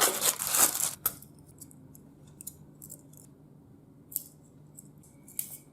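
A delivery package being opened by hand: a loud scraping, rustling burst of packaging for about a second, then a click. Scattered light rustles and clicks follow, the strongest near the end.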